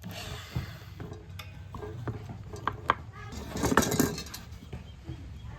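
Light metallic clinks and taps from small metal workshop parts being handled and set down, scattered, with a denser cluster about four seconds in.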